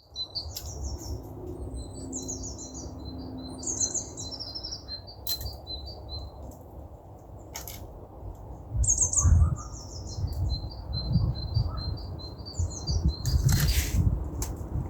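Melting sheet ice giving sharp clicks and snaps, with a longer crackle near the end, as the water under it drains away and the sun warms it. A songbird sings repeated high trills over it, and a low rumble grows louder about nine seconds in.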